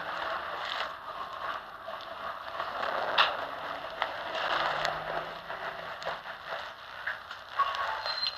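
Bus cabin noise as the bus runs, a steady rattling hum with a sharp click or knock about three seconds in and a fainter one near five seconds.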